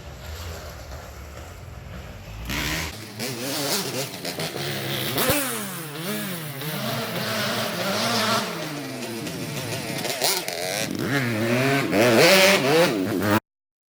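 Kawasaki KX dirt bike engine, first a low steady rumble, then revving up and down repeatedly as it is ridden, loudest near the end; the sound cuts off abruptly just before the end.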